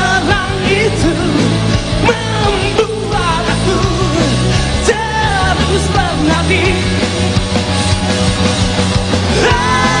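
Rock band playing live, with a melody line bending in pitch over steady low bass notes. About nine and a half seconds in, the band moves to a long held chord.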